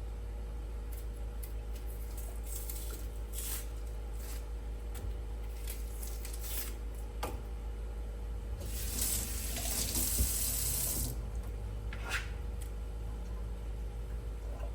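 Kitchen tap running for about two and a half seconds a little past the middle, after a few light scattered rustles and knocks.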